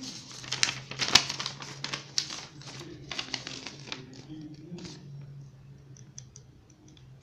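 Paper courier waybill and plastic packaging crinkling as hands handle them: a dense run of rustles and crackles for the first four seconds, then lighter, scattered rustles.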